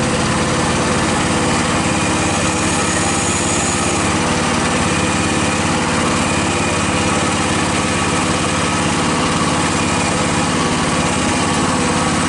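Small engine of a one-ton Typhon Terror One mini excavator running steadily while the machine is operated.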